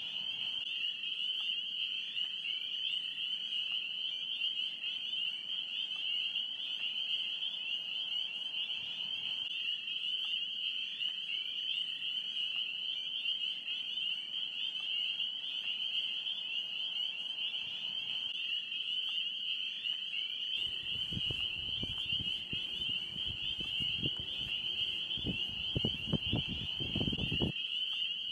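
Steady, high-pitched trilling chorus of field insects that holds unbroken throughout. About two-thirds of the way in, irregular low buffeting rumbles and thumps join it for several seconds.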